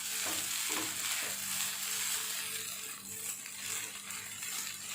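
Shredded egg kothu parotta being stirred with a spatula in a hot pan, with a faint sizzle and a few scrapes in the first second or so.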